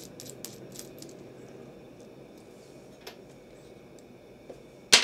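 Small metal parts of a soldering iron handle being unscrewed and handled: a few faint clicks as the threaded tip-retaining nut and tip are worked loose, then near the end a loud metallic clink with brief ringing as a metal part is set down on a wooden desk.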